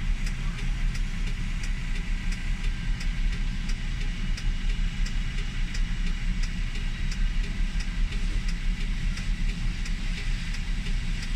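Vehicle engine idling steadily, a low continuous rumble, with a faint regular ticking over it.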